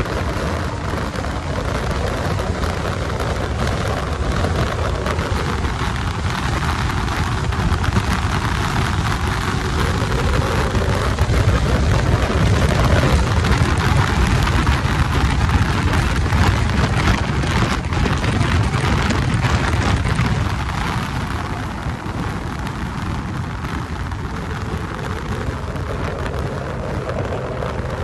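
Wind rushing over the microphone of a sport motorcycle at highway speed, with the engine running underneath, its pitch slowly rising and falling. The noise swells louder in the middle and eases near the end.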